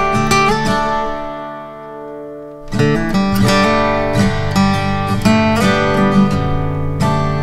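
Background music of strummed acoustic guitar; it fades down briefly and comes back in with strong strums a little under three seconds in.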